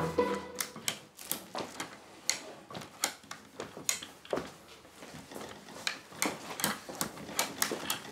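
Abacus beads being flicked and clacked, a run of sharp, irregularly spaced clicks.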